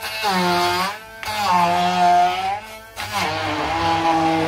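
Background music over a stick blender puréeing cooked sweet potato chunks in its beaker, with two brief dips in the sound.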